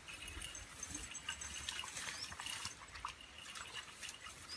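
Faint, irregular splashing and dripping of shallow pond water as a Thai Ridgeback dog noses about at the edge of a lily pond.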